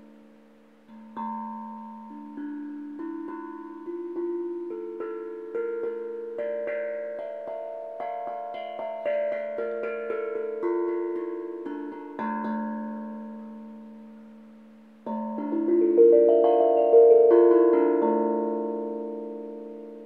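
Handmade steel tank drum (tongue drum) struck with the fingers: single ringing notes one after another in a climbing melodic run, left to die away, then a quicker flurry of notes about three quarters in that rings on and slowly fades.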